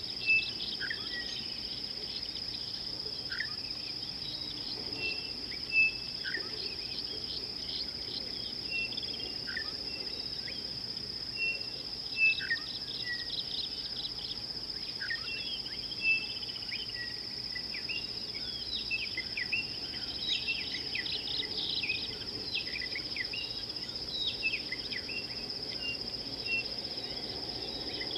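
A steady, high-pitched insect trill runs throughout, with many short bird chirps and calls over it and a few sharper, louder chirps now and then.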